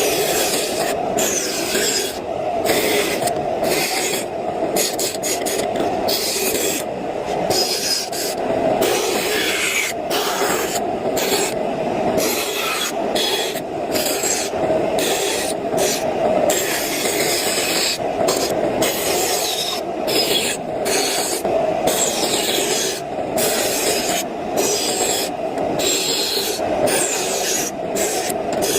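A saw cutting through wood in repeated strokes, with short breaks between them about once or twice a second.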